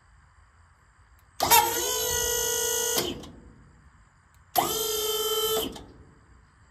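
Dump trailer's 12-volt electric hydraulic pump switched on twice from the wireless remote: two short runs, about a second and a half and then about a second, each starting with a sharp jolt into a steady whine and winding down after it cuts off.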